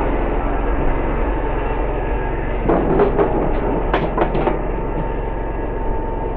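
Walker GHS MT zero-turn riding mower's engine running steadily close up, loud enough to drown out talk. About three seconds in, a short cluster of sharp knocks and clatters rises above the engine for a second or two.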